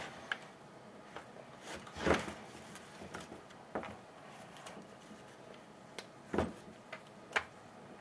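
Scattered clicks and knocks of small hedge trimmer parts being handled and fitted during reassembly, the loudest knocks about two seconds in and about six and a half seconds in.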